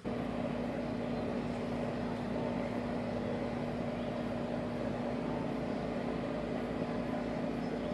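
A steady mechanical hum with a constant low drone, starting and stopping abruptly.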